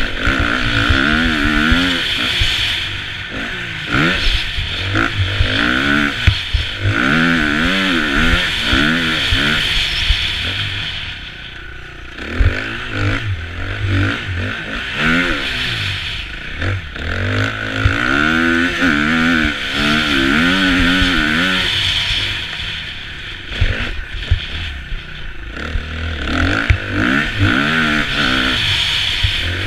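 KTM 350 EXC-F four-stroke single-cylinder dirt bike engine revving up and falling back again and again as the rider works the throttle and gears, easing off briefly near the middle. Wind rush on the helmet-mounted camera and scattered knocks and clatter from the bike over rough ground run along with it.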